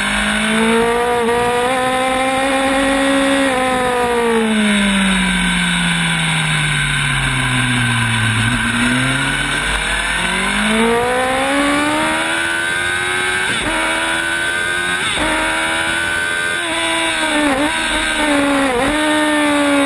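Sport motorcycle engine at high revs. The pitch climbs, then falls away smoothly for several seconds as the bike slows, then climbs again, with a few quick dips in pitch near the end. A steady wind hiss runs underneath.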